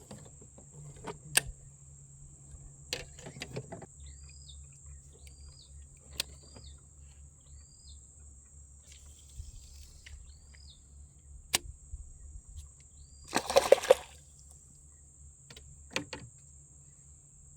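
Steady high-pitched chorus of crickets or other insects, with a run of about six short chirping calls in the middle, scattered small clicks and knocks, and one louder rustling clatter about three-quarters of the way through.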